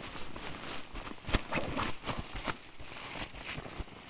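Irregular rustling and soft knocks of tent fabric and bedding as two dogs and a person shift about in a small tent, with a few sharper clicks clustered around a second or two in.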